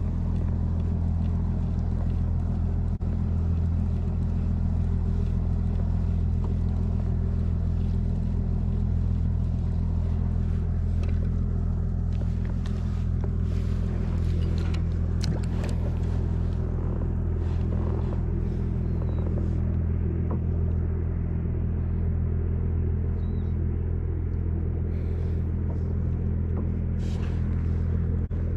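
Steady low hum of a running motor, unchanging throughout, with a few faint clicks and knocks over it.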